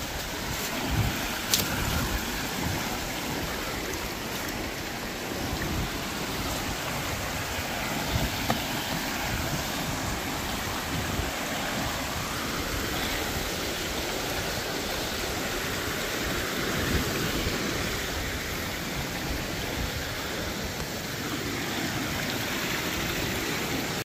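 Steady rushing of a rocky mountain river, an even hiss of flowing water.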